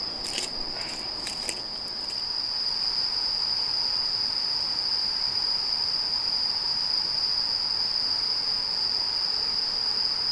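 Crickets singing in a steady, unbroken high-pitched chorus, with a few faint clicks in the first two seconds.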